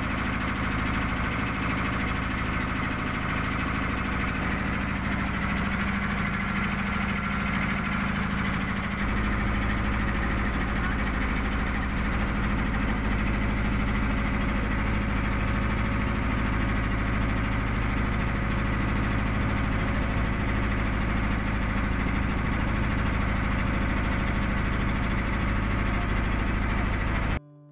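Tour boat's engine running steadily, heard from on board, its low note settling and evening out about a third of the way in; it cuts off suddenly near the end.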